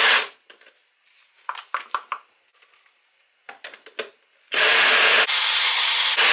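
NutriBullet personal blender's motor whirring as it blends chopped sorrel; it cuts off just after the start. A few light knocks and clicks follow, then the blender runs again from about four and a half seconds in.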